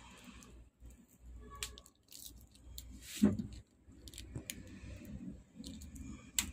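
A snap-off utility knife scraping and cutting double-sided adhesive tape against a TV's sheet-metal backplate, with small clicks and crackles and one sharper knock about three seconds in.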